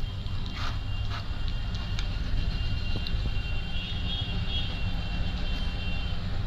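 A steady low rumble with a faint high whine runs throughout. Over it come a few light clicks and crunches as a crisp puri is broken open and filled with a spoon.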